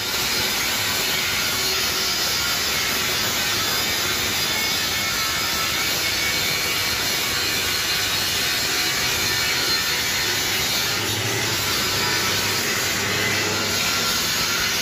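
Handheld angle grinder grinding the steel floor of a truck cargo box, running steadily under load.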